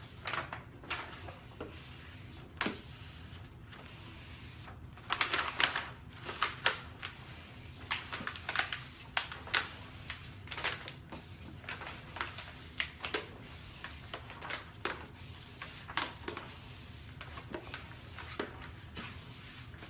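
Adhesive vinyl wrap film and its backing paper being handled and smoothed by hand, giving scattered short crackles and a few longer rustling crinkles, over a steady low room hum.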